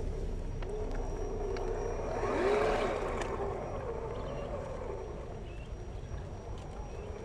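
Brushed electric motor and gearbox of an MN86K RC crawler whining as it drives through mud and water, the pitch wavering up and down with the throttle. A louder rush of noise comes about two and a half seconds in.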